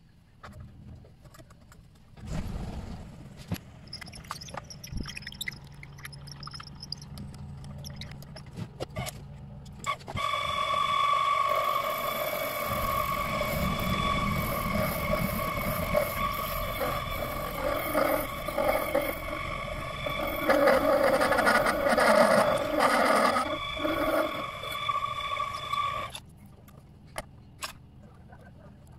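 Small electric motor of a homemade mini-lathe running, first as a low hum from about two seconds in, then about ten seconds in with a louder, steady high whine that cuts off suddenly near the end.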